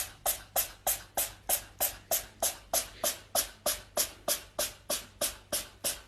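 A cat sneezing over and over in a fast, evenly spaced series of short, sharp sneezes, about three a second.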